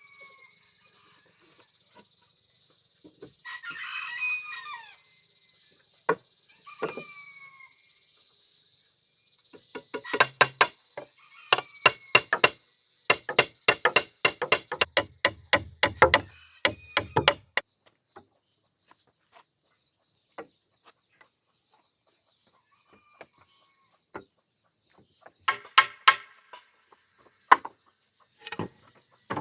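Quick runs of hammer blows on wooden boards, about three a second, with a few short falling bird calls and a steady high insect hiss behind them.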